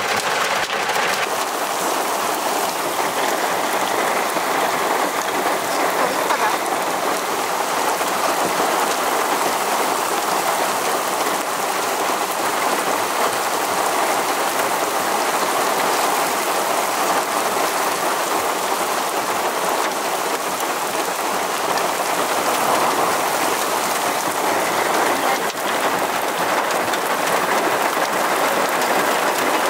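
Heavy downpour, a cloudburst, pelting steadily on a gravel road and grass: a dense, even hiss of rain that never lets up.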